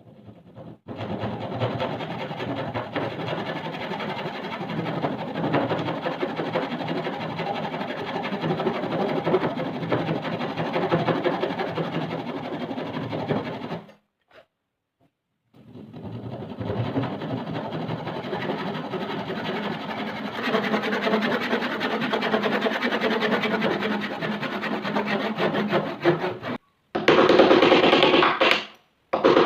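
Background music that drops out for about a second and a half near the middle, then stops briefly and comes back louder near the end.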